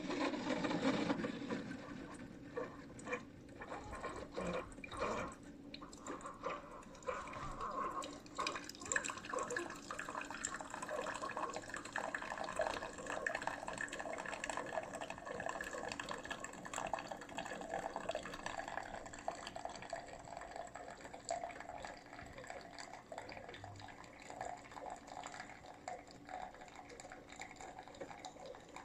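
Keurig K-Supreme Plus SMART single-serve coffee maker brewing, with coffee pouring into the cup. It starts abruptly and runs steadily.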